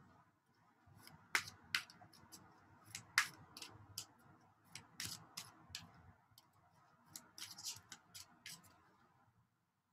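Cards being handled: irregular light clicks and snaps over a soft rustle, stopping about nine seconds in.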